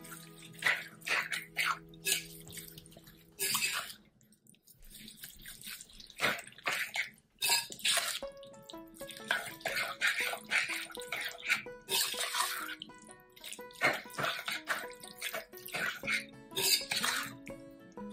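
A metal spoon stirring a thick, wet mixture of tomato soup, oil, sugar and sliced onion and green pepper in a glass bowl: repeated wet sloshing strokes and scrapes against the glass, with a brief pause about four seconds in. Soft background music plays underneath.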